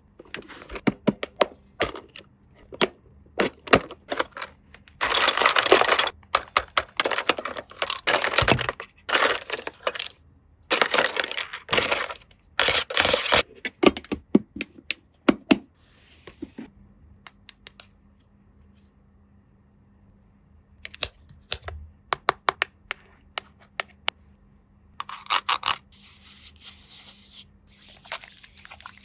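Toy packaging and small plastic toy parts being handled: quick clicks and taps, broken by several stretches of crinkling or tearing packaging lasting a second or two each.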